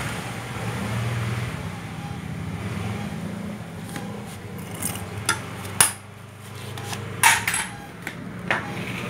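Metal tools and parts being handled: about half a dozen sharp metallic clinks and knocks in the second half, over a steady low hum.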